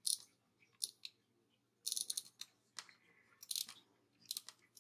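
White-out being rubbed onto planner paper in a series of short scratchy strokes, about seven, with brief pauses between them.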